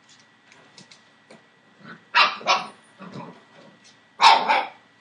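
Seven-week-old Entlebucher Mountain Dog puppies barking: two quick barks about two seconds in, a softer one just after, and another loud bark near the end, with faint small clicks before them.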